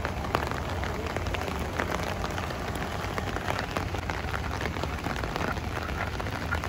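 Steady rain falling, with many sharp drop hits close by and a steady low rumble underneath.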